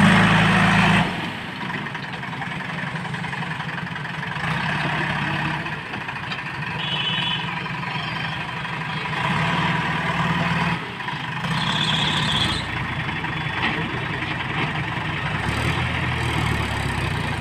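Diesel engines of a Mahindra tractor and a JCB 3DX backhoe loader running together as the loader's bucket pushes the loaded trailer. The engine note swells and eases, loudest in the first second.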